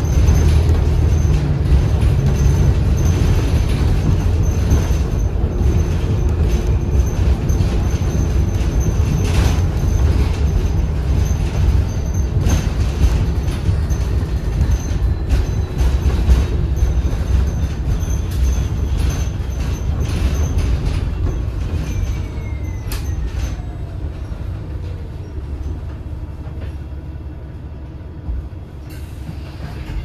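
Interior ride sound of a 2013 New Flyer XDE40 diesel-electric hybrid bus: a steady low drivetrain rumble with the body rattling and knocking over the road. In the second half a whine falls in pitch and the sound eases off as the bus slows down.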